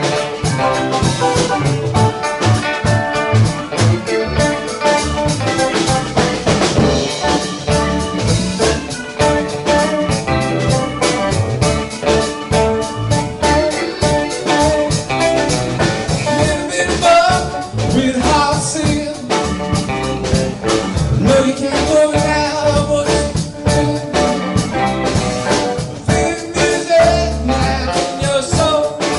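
Live band playing a New Orleans funk groove on electric guitars, bass guitar, electric keyboard and drum kit, amplified through PA speakers.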